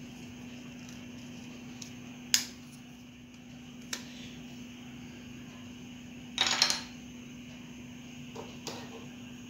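Sharp metallic clicks and a brief clatter as a small steel clothes-peg spring wire and pliers are handled over a camping gas burner: one loud click about two seconds in, another near four seconds, a short rattle about six and a half seconds in, and two faint ticks near the end. A steady low hum runs underneath.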